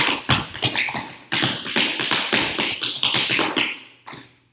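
Tap shoes striking the floor in a fast, accented tap-dance phrase, a dancer demonstrating one kind of touch and impact on the floor. Near the end the strikes thin to a few soft taps and stop.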